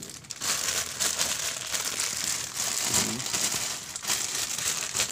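Plastic mailer bag crinkling and rustling steadily as it is handled and opened.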